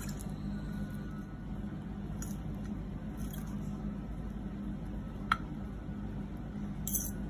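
Metal forks clinking lightly now and then against a plate and bowl as shredded lettuce is lifted and dropped onto enchiladas, with one sharper clink about five seconds in and a few more near the end, over a steady low hum.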